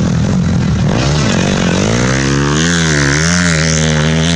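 Dirt bike engine revving on the track, its pitch climbing and dipping several times with the throttle from about a second in, over a steady engine drone.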